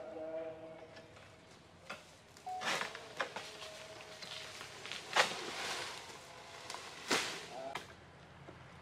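Oil palm harvesting sickle (egrek) on a long pole striking an oil palm frond: three sharp cutting strokes, about 2.5, 5 and 7 seconds in, the middle one the loudest.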